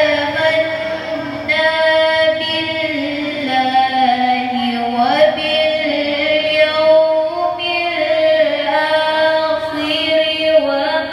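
A woman reciting the Qur'an in Arabic in the melodic, chanted tajwid style, drawing out long held notes with gliding ornaments in phrases that pause for breath about every few seconds. Her voice comes amplified through a microphone.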